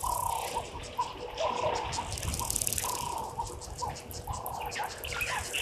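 Birds calling in the bush: a run of short whistled notes repeated every half second to a second, with other bird chirps over them and a faint steady hum underneath.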